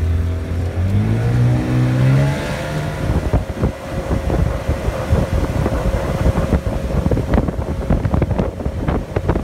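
Outboard motor on an aluminium tow boat revving up, its pitch rising over the first two seconds or so. Then, with the boat underway, wind buffets the microphone in a choppy rush over a steady engine whine.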